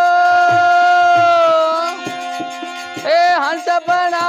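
Devotional bhajan: a man's voice holds one long sung note over a harmonium's steady reed tones, then starts a new phrase about three seconds in. A dholak drum keeps a steady beat of about two strokes a second underneath.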